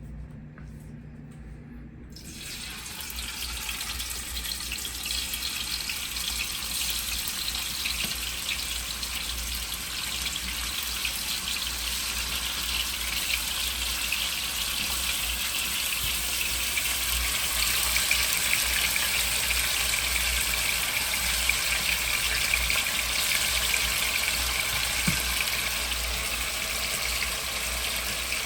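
Seasoned oxtail pieces sizzling in hot oil in a pot as they fry to brown. The sizzle comes in about two seconds in and slowly grows louder, with a fine crackle.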